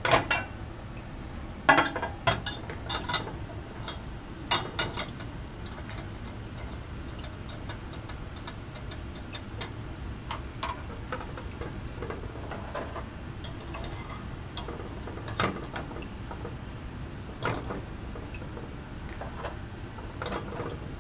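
Scattered metallic clicks and clinks of a lab clamp being fitted onto a ring-stand rod and adjusted by hand, a cluster in the first few seconds and a few more later, over a steady low hum.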